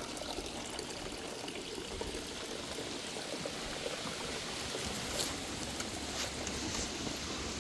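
Steady trickle of running water, with a few faint ticks.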